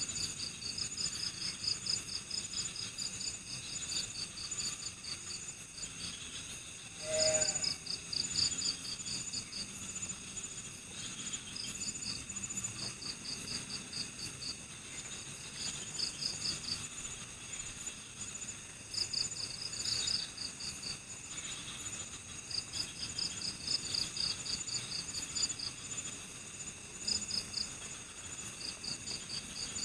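Night-time chorus of crickets: rapid high-pitched pulsed trills coming in short bursts over a steady high drone. One brief, lower and louder call stands out about seven seconds in.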